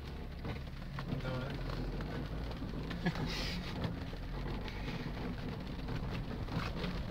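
Off-road vehicle running steadily, heard from inside the cab as a low rumble, with rain ticking on the windscreen and the wipers sweeping.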